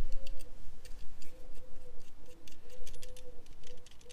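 Light metallic clicks and ticks, irregular and quick, from a battery isolator switch being handled and its small metal fittings turned by hand.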